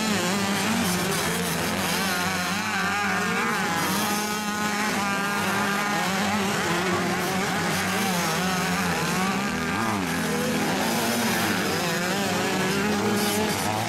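Several motocross bike engines revving up and down at the same time as the bikes take a dirt corner. Their pitches rise, fall and overlap.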